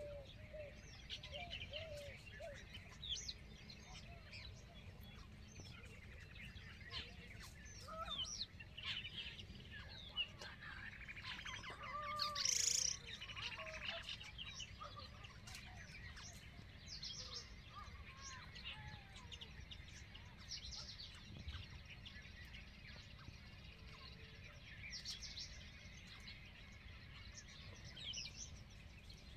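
Small birds chirping and twittering on and off, with short high calls scattered throughout. A louder, harsher sound of about a second comes a little before halfway. A steady low rumble of outdoor noise sits underneath.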